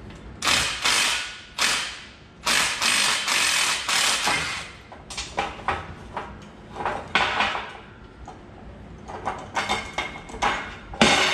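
Cordless power driver running in bursts, working the tight center bolt of a steel leaf spring pack loose, followed by shorter metal clinks and knocks as the spring leaves and bolt are handled.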